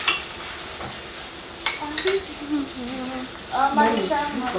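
A spoon stirring in a cooking pot, clinking sharply against it a few times, over a light hiss of frying.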